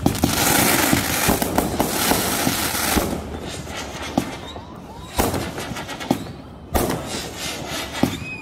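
Consumer aerial fireworks going off. For about three seconds there is a dense run of crackling and popping, then a string of separate louder bangs about a second apart as the shells burst.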